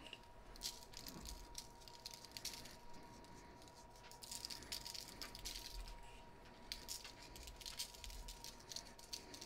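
Faint scattered rattling and pattering as dry seasoning is shaken from a container and sprinkled onto raw steaks on parchment paper, over a thin steady high hum.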